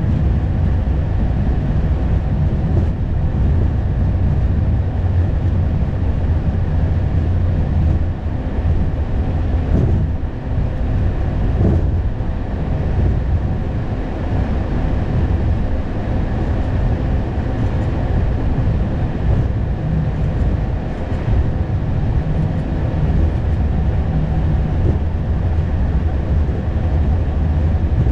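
Steady low rumble inside an Airbus A220 cockpit, from the aircraft's engines and airframe, with a few faint steady tones above it.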